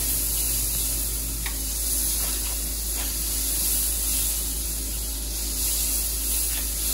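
Butter sizzling as it melts in a hot cast-iron skillet: a steady hiss, with a couple of faint ticks.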